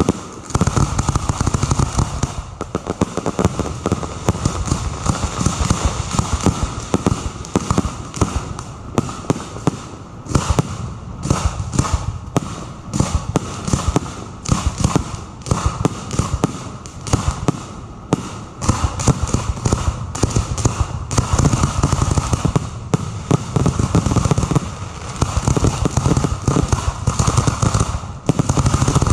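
A fireworks display being fired at close range: aerial shells launching and bursting in rapid, overlapping succession, a dense barrage of bangs and thuds typical of a finale.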